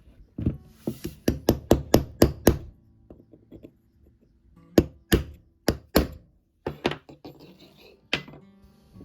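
Sharp tapping strikes in quick runs: about eight evenly spaced in the first two and a half seconds, a pause, four more a little past halfway, then a few scattered ones near the end. Light background music plays underneath.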